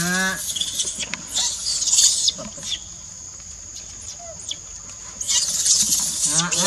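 Bursts of dry rustling, around two seconds in and again near the end, over a steady high insect drone. A voice sounds briefly at the start and again near the end.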